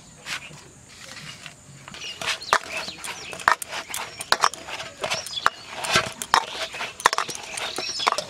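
Hands kneading rice-flour dough in a steel bowl: soft pressing, then from about two seconds in a run of irregular sharp clicks and knocks as the hands, the dough and the bangles on the wrist strike the metal bowl.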